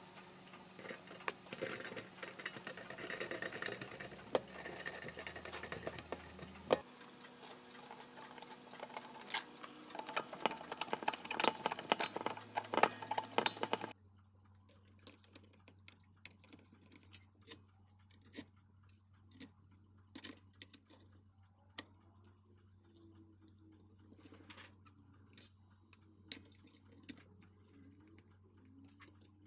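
Clock mechanism clicking and rattling with dense, quick clicks. About halfway through it cuts off suddenly to quieter scattered ticks over a faint steady hum.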